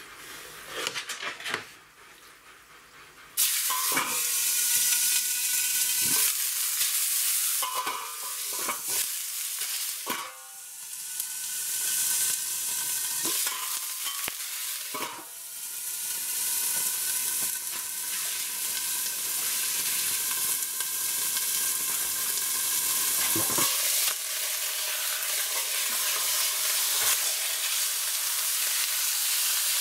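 Beef steaks frying in rendered fat-tail lamb fat in a very hot roasting pan. A loud sizzle starts suddenly about three seconds in as the meat goes into the fat and runs on steadily, with a few knocks of meat and utensil against the pan.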